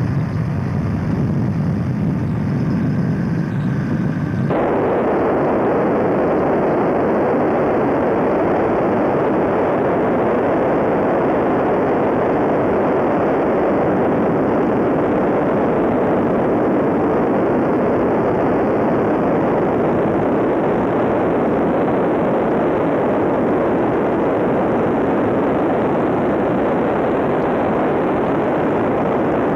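Tiger Moth biplane in flight, heard from its open cockpit: steady engine and propeller drone mixed with rushing wind. About four seconds in the sound changes abruptly from a lower rumble to a broader, even rush.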